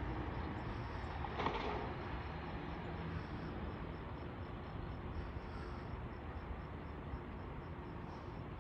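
Diesel garbage truck engine running steadily, with a brief louder burst about a second and a half in.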